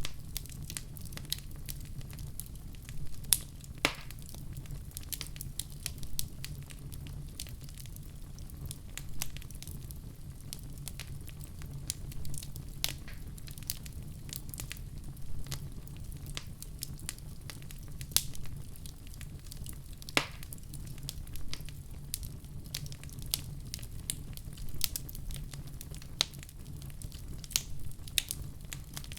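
Wood fire in a fireplace crackling, with frequent sharp pops and snaps over a steady low rumble of the flames; a few louder pops stand out, about four seconds in and again about twenty seconds in.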